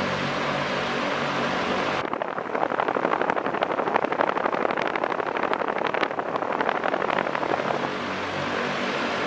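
Havells Speedster ceiling fan with four metal blades running at its top speed of about 780 RPM, a steady rush of air over a low hum. For about six seconds in the middle it turns into a louder, rapidly fluttering rush, then settles back to the steady sound.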